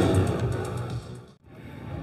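Rock music with electric guitar fading out to a brief moment of silence about a second and a half in, after which faint background ambience returns.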